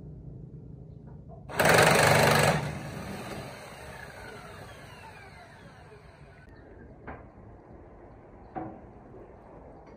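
An impact wrench on the bolts of a chipper's cutting knife: one rapid hammering burst about a second long, then a whine that falls in pitch as it fades. Two short metallic knocks follow later.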